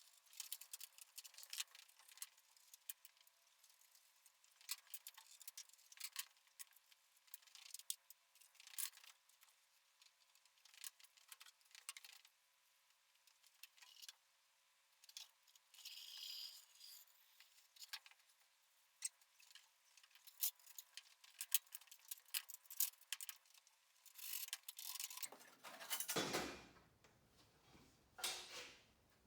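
Light metallic clicks and clinks of hand tools and loose parts coming off an ATV during teardown, scattered and irregular, with a louder stretch of clattering near the end.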